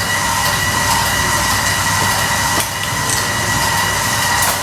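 Steady whir of an electric motor with a constant high whine, in a kitchen while cooking, with a few light clicks.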